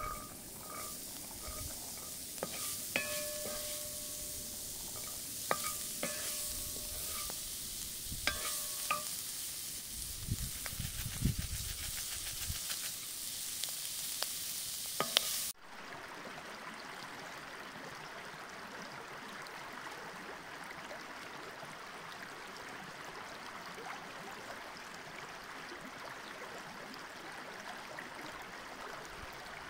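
Pomegranate seeds and onions sizzling in a wok over a campfire, while a wooden spoon stirs and knocks against the metal pan, which rings briefly with each knock. About halfway through it cuts suddenly to a shallow river running steadily over stones.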